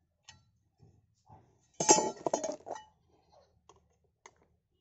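Small metal parts and hand tools clinking and clattering as they are picked up and handled on concrete. The loudest clatter comes about two seconds in, with a few lighter single clicks before and after.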